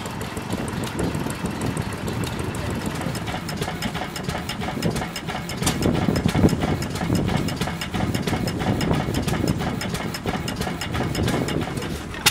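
Small vintage stationary engines running steadily with a fast, even mechanical beat: first an air-cooled Wolseley engine belt-driving a water pump, then an open-flywheel horizontal engine.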